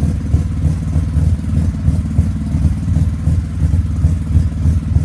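1981 Mazda RX7's 12A rotary engine idling with a steady, unevenly pulsing low rumble. It is an engine that has not run for a long time and needs a good tune.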